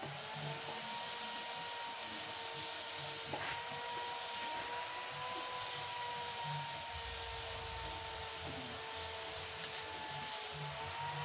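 A steady mechanical whine from a motor running, holding two slightly wavering tones throughout, with a faint click about three seconds in.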